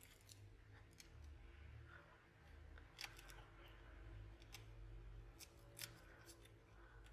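Near silence with faint, scattered small clicks and ticks of hand tools working on a smartphone's insides, over a low hum.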